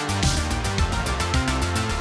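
Background music with a fast, steady beat and a bass line.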